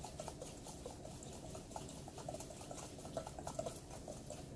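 Wire hand whisk beating instant coffee, sugar and hot water in a bowl, early in whipping it into dalgona foam: a faint, quick, uneven run of light clicks and wet patter.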